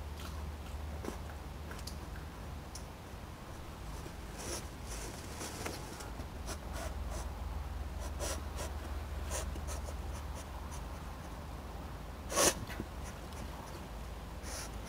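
A European otter moving through riverbank grass and over the ground: scattered scratchy rustles and light clicks over a steady low hum, with one short, loud noise about twelve seconds in.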